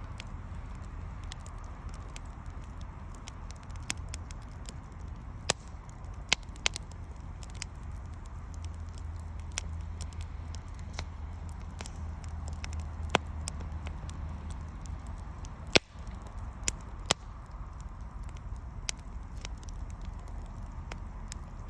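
Wood fire burning, crackling with scattered sharp pops over a low steady rush of flame.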